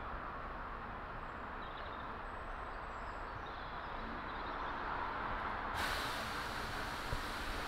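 Steady distant rumble of a diesel freight locomotive approaching along the line, mixed with a low hiss. About six seconds in, a brighter hiss comes in suddenly and stays.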